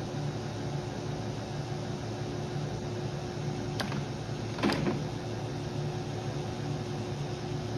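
Kearney & Trecker Milwaukee 2D vertical mill running with a steady mechanical hum while its table travels under power feed. A small click sounds near the middle, followed by a short knock.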